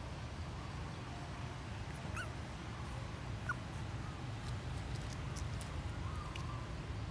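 Young puppies whimpering, with a few short, high, rising squeaks, the sharpest about halfway through, over a steady low rumble.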